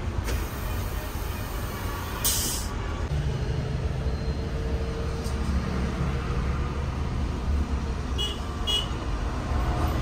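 Bus engine idling with a steady low rumble, a short burst of compressed-air hiss about two seconds in and two brief high beeps near the end.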